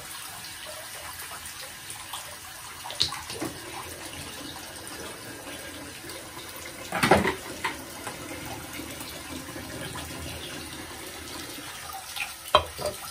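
Water spraying from a handheld shower head onto a dog's coat in a partly filled bathtub, with the bath tap also running: a steady rush of water. A few brief sharp sounds break through it, the loudest about seven seconds in.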